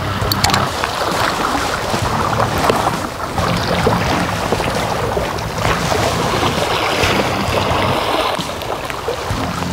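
Seawater washing against shoreline rocks, with wind buffeting the microphone: a steady, fairly loud rushing noise.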